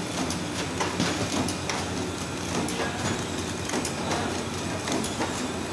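Horizontal flow wrap packing machine running steadily, a continuous mechanical clatter with repeated short clicks as it wraps stick ice cream bars in film.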